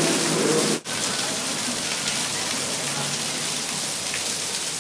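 Rainwater pouring through the subway station ceiling onto the platform and track bed: a steady hiss of falling water. It cuts out sharply for a moment about a second in, then resumes unchanged.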